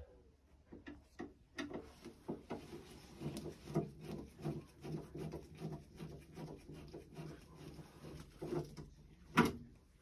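Small irregular clicks, taps and knocks of a screwdriver and gloved hands working on parts inside an open gas boiler, with one louder knock near the end. A faint low hum runs under them through the middle.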